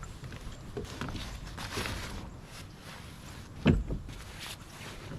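Light knocks and handling noises from gear being moved about in a kayak, with one sharper knock a little past halfway.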